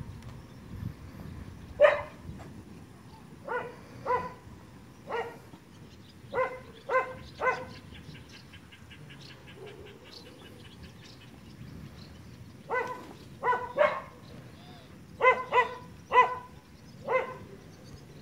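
A dog barking repeatedly in short barks, singly and in quick groups of two or three, about fourteen in all, with a pause of about five seconds in the middle.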